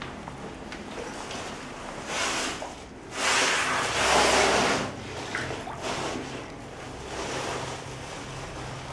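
Deep standing floodwater sloshing and swishing as someone wades through it, in a few surges, the longest and loudest from about three to five seconds in.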